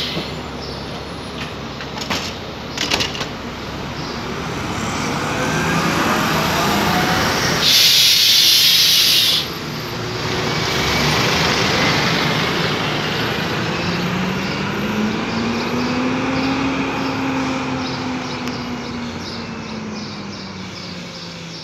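Cabin sound of a BMC Belde city bus with a Cummins ISBe 6.7 turbo diesel and ZF Ecomat six-speed automatic: the engine pitch rises as the bus gets under way. About eight seconds in comes a loud hiss of compressed air from the pneumatic valves, lasting about a second and a half and cutting off sharply. Afterwards the engine and gearbox tone rises and then falls away, with a few clicks in the first three seconds.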